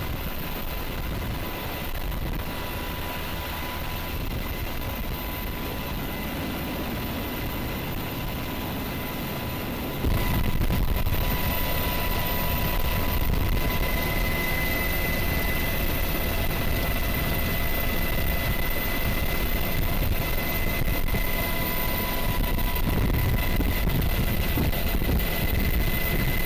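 Helicopter in flight: steady turbine and rotor noise with a thin high whine over it. It gets louder about ten seconds in.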